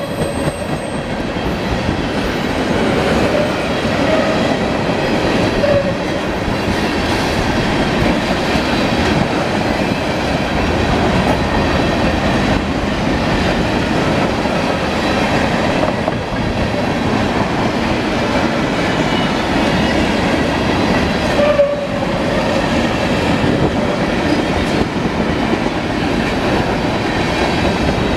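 Freight train of railroad tank cars rolling past at close range: a steady rumble and clatter of steel wheels on the rails, with a couple of brief faint wheel squeals.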